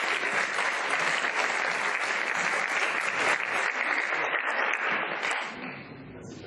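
Audience applauding, the clapping dying away about five and a half seconds in.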